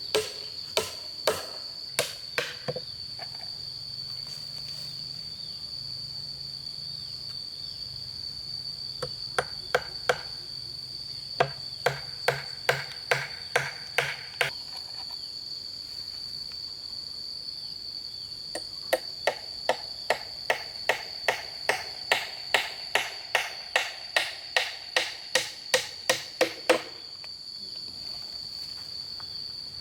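Hammer blows in three runs of steady strikes, about two a second, the longest run in the last third. Under them runs a steady high-pitched drone of insects.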